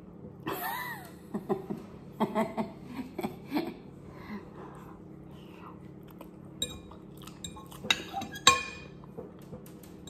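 A metal fork clinking and scraping against a ceramic bowl while instant noodles are eaten, with slurping and chewing. A few sharp, ringing clinks come in the second half.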